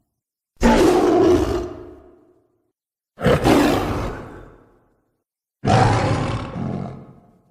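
Three separate monster roars, homemade sound effects for the creature Doomsday. Each starts suddenly and fades away over about a second and a half, with dead silence between them.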